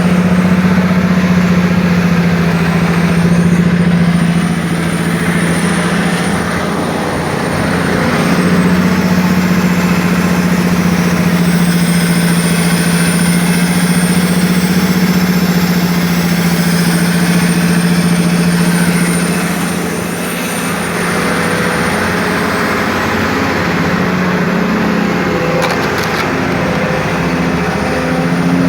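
Excavator engine running steadily with a knock, easing off briefly twice.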